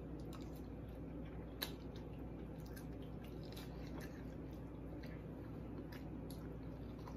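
Close-up wet chewing of a mouthful of baked ziti, with a few light clicks and taps of a fork on a plate, the sharpest about a second and a half in.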